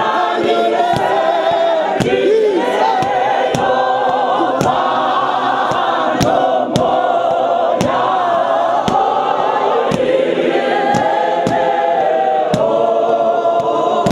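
Church congregation and choir singing a hymn together, many voices at once, with a sharp steady beat keeping time about twice a second.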